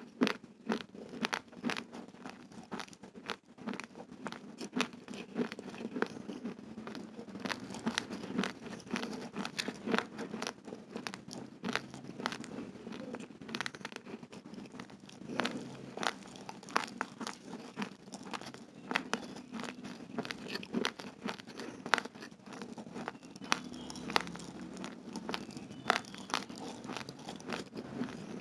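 Close-miked chewing of raw, uncooked rice grains: a dense, irregular run of sharp, gritty crunches, several a second, without pause.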